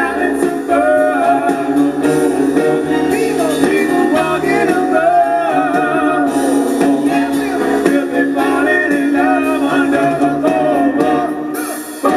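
Live rock band music with singing and guitar.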